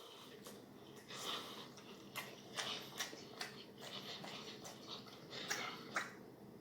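Soft, irregular chewing with small wet mouth clicks and smacks from a person eating BBQ ribs and mac and cheese.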